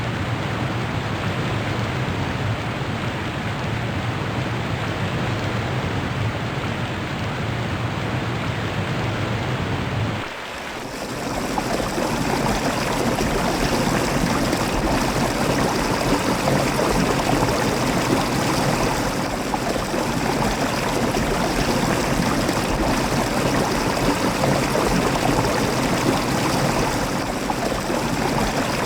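Steady rush of flowing water, like a stream. About ten seconds in the sound changes abruptly to a brighter, slightly louder rush of water.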